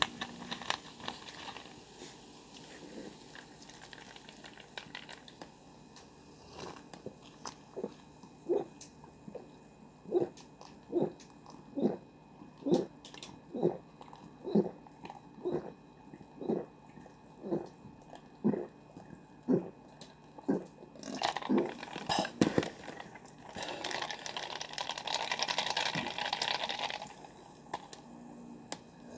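Someone gulping cola in a steady run of swallows, about one a second, close to the microphone. Near the end come a few sharp clicks and then a hiss lasting about three seconds.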